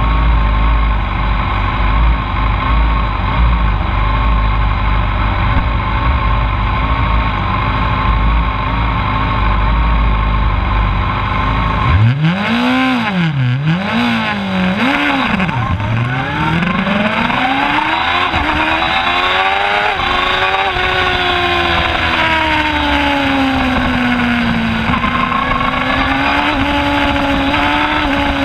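Middleweight sport bike engine recorded onboard, idling with a heavy low rumble, then revved sharply three times about halfway through before pulling away with a long climbing engine note that holds high revs, rising and falling gently through the corner.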